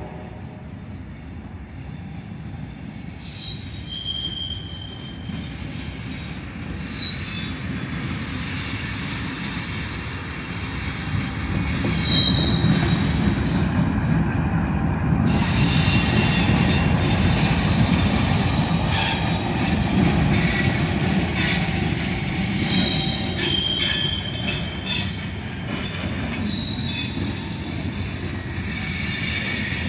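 Two GE Dash 9-44CW diesel locomotives roll up and pass with a low rumble that grows louder, then the freight cars behind them roll by. High wheel squeals come and go, and the wheels click steadily over the rail joints.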